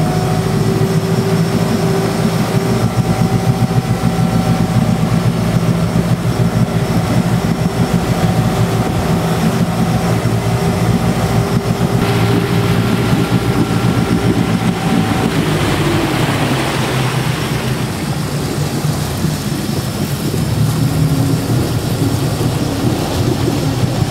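Glastron 185 motorboat's engine running steadily under way, a low hum, mixed with the rush of wind and churned water; the hiss of water grows stronger about two-thirds of the way through.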